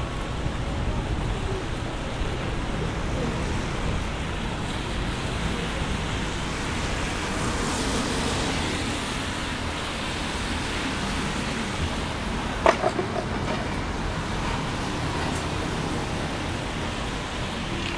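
Road traffic passing on a city street in heavy rain: a steady wash of vehicle and wet-road noise with the rain. A single sharp knock about two-thirds of the way through.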